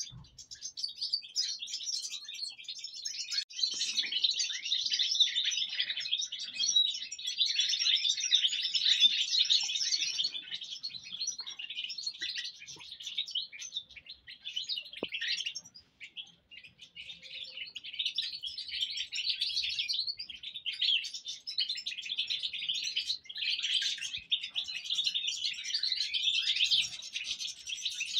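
A group of European goldfinches twittering and chattering in a busy, continuous stream of high tinkling notes, with a brief lull about halfway through.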